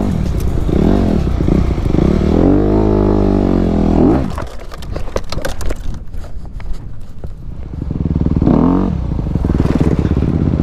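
Dirt bike engine revving up and down on a trail climb; about four seconds in the engine sound drops away, leaving scattered clattering and scraping from the bike and rocky ground, and an engine revs again near the end.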